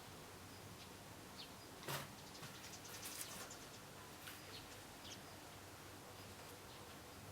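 Faint scattered small clicks and taps over a quiet background, the sharpest a single click about two seconds in, with a short cluster of ticks a second later.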